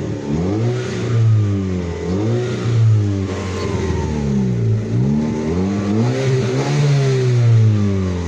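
Chevrolet Meriva's four-cylinder engine revved in several blips, its pitch climbing and falling about four or five times, through an exhaust with the muffler replaced by a straight pipe and a new exhaust tip, which gives it a slightly sportier note.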